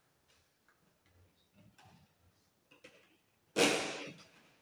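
Gloved hands working electrical cable along plastic wiring trunking: scattered light clicks and rustles, then one louder, brief swish about three and a half seconds in.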